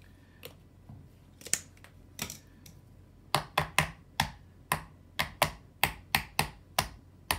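Ball bearing being banged into the plastic hub of an Uppababy Vista rear wheel with a screwdriver: sharp knocks, a couple at first, then a steady run of about three a second from about three seconds in.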